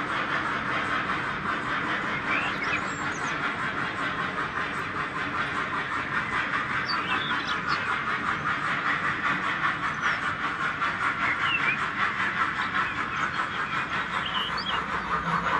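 H0-scale model goods wagons rolling past on the track, a steady fast rattle of small wheels on the rails. A few short chirps sound over it now and then.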